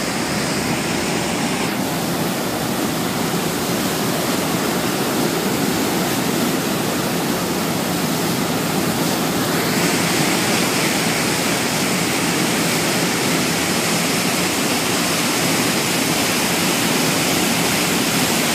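Churning wake water rushing and foaming behind a boat running at speed: a loud, steady rush. Its hiss dulls for several seconds and then comes back brighter near the middle.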